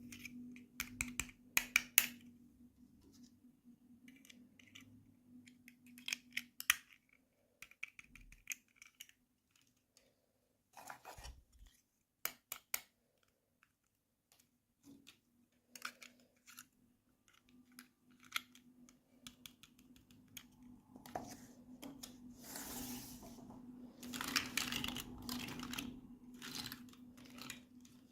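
Hands handling small plastic toy pieces and packaging during an unboxing: scattered light clicks and taps, with a longer stretch of rustling past the middle.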